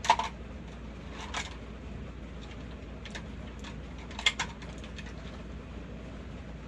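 A few sharp clicks and clacks of makeup containers being handled, picked up and set down, the loudest a quick double clack about four seconds in.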